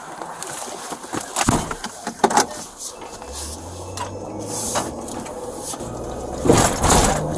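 A person climbing into a car's driver's seat: rustling of clothing against the body-worn camera, with a few knocks and thumps, the loudest near the end. A low hum sets in about halfway through.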